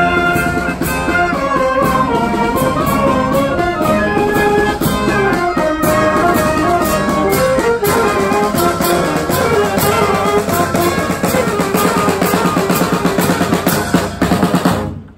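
Marching band playing a march on the move: saxophones, clarinets and brass such as euphonium and tuba carry the tune over snare drum, bass drum and cymbals. Near the end a quick flurry of drum strokes, then the music cuts off suddenly.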